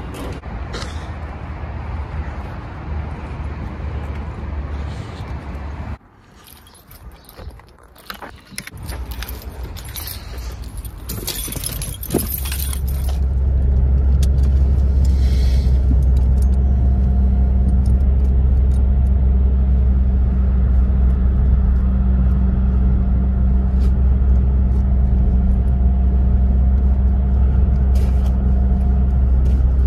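Car driving at motorway speed, heard from inside the cabin: a loud, steady low road and engine drone with a faint steady hum, starting about twelve seconds in. Before it there are a few seconds of outdoor traffic noise, then a quieter stretch of sharp clicks and rattling.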